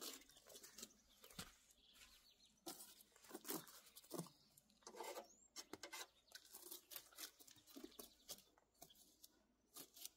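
Faint, irregular scraping and crackling of caked, drying mud being pulled and scraped off a Jeep's tyre and wheel well by hand.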